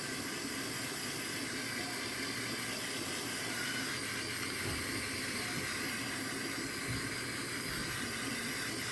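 Heat gun blowing with a steady hiss, shrinking heat-shrink sleeving over a soldered power-cord splice.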